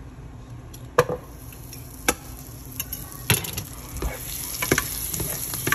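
Sliced chicken sausage going into a hot pan of butter and oil, frying with a sizzle that builds and grows louder from about four seconds in. About six sharp knocks of pieces or a utensil against the pan land through it.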